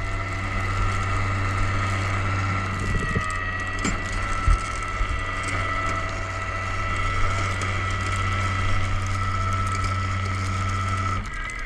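Flatbed tow truck's winch running steadily with a low hum and a steady whine as it pulls a Jeep Cherokee up onto the bed, with a few clunks a few seconds in. The winch stops near the end.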